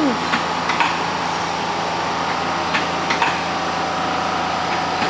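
Steady machine hum in a tyre shop, with a few light clicks.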